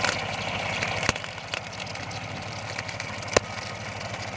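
Compact tractor's engine running steadily as it drives a belt-driven rotary brush cutter through grass, with a few sharp knocks, the loudest about three seconds in.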